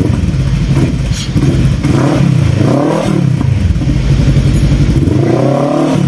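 Bristol Venturi 500 motorcycle engine running through an Akrapovic M1 muffler fitted in place of the stock pipe. It idles between two throttle blips, with the revs rising and falling about two seconds in and again near the end.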